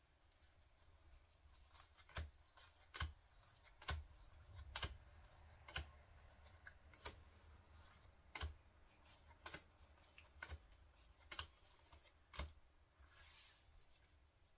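Pokémon trading cards handled one at a time as a pack is gone through: a faint sharp snap or tap about once a second, with a brief rustle near the end.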